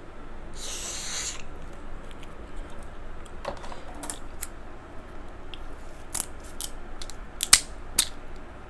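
King crab leg shells being cracked and broken apart while eating: a scattered run of sharp cracks and clicks, with a brief hissing noise about a second in.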